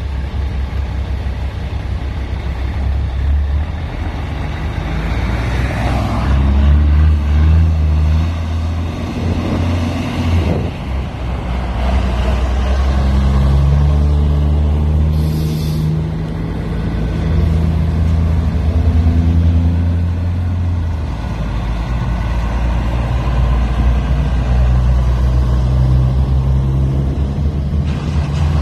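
Diesel engines of Peterbilt 379 semi trucks hauling heavy loads, running and pulling away, their engine note changing pitch several times as they work through the gears. A short hiss about halfway through.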